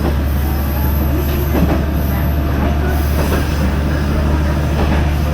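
Koumi Line diesel railcar heard from inside while running: a steady low drone with rattling wheel-on-rail noise, a few faint knocks, and a thin high wheel squeal through the first half.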